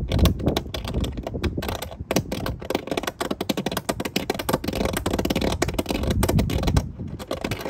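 Hand deburring tool scraping around the edge of a drilled hole in a van's sheet-metal roof: a fast, chattering run of scrapes that stops near the end.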